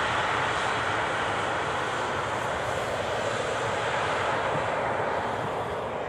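Twin turbofan engines of an Embraer E-Jet airliner running at high power during its takeoff roll: a steady jet roar that eases slightly near the end as the aircraft moves away.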